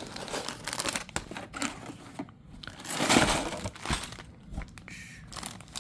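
A LEGO set's cardboard box being worked open and its bags of pieces handled: irregular crinkling and rustling with small clicks and knocks, busiest about three seconds in.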